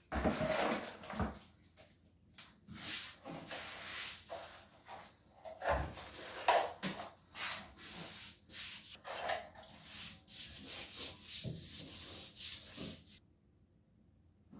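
Gloved hands working wet Portland cement slurry: stirring it in a plastic bucket, then spreading it by hand on the concrete slab inside the wooden curb form. Irregular rubbing and scraping strokes that cut off suddenly about a second before the end.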